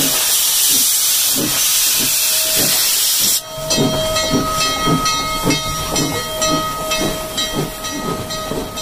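Steam locomotive moving off: a loud hiss of steam venting from its open cylinder cocks cuts off suddenly about three and a half seconds in, leaving a regular chuffing rhythm that slowly fades as the engine passes.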